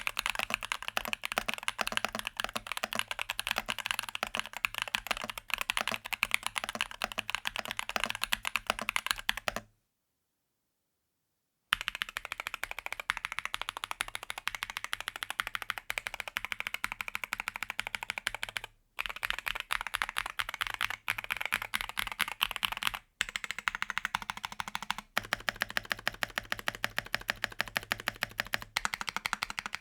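Fast, continuous typing on a Rexus Daxa M61/M64 60% mechanical keyboard: a dense clatter of keystrokes. It cuts to complete silence for about two seconds around ten seconds in, then resumes, with a few short breaks later on.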